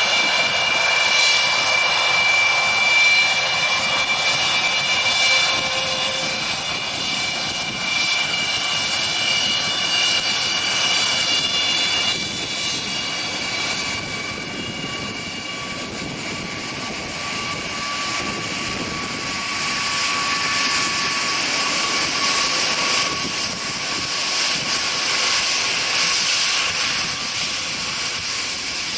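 The four D-18T turbofan engines of an Antonov An-124-100 whining steadily as the freighter taxis past. Several high whine tones weaken about halfway through, and a broader rushing hiss of jet exhaust builds near the end as the tail passes.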